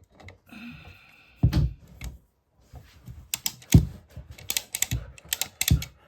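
Plumbing tools and fittings being handled: a run of quick sharp clicks through the second half, with a few dull knocks and a brief squeak early on.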